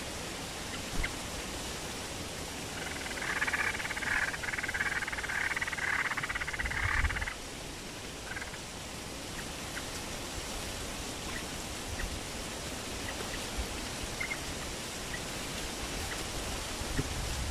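Streak-eared bulbuls calling: a loud burst of rapid chattering notes lasting about four seconds, starting a few seconds in, then scattered short single chirps, over a steady hiss.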